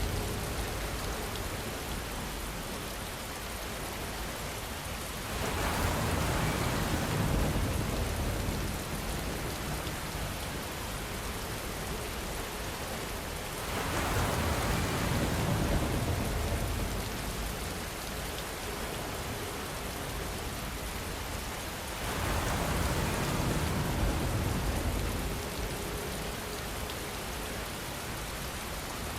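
Steady rainfall pattering on surfaces, a continuous hiss of drops. It swells louder, with a low rumble underneath, three times, roughly every eight seconds.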